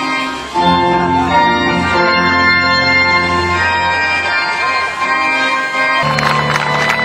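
Organ music playing held chords that change every second or so. Near the end the harmony shifts lower and clapping starts over it.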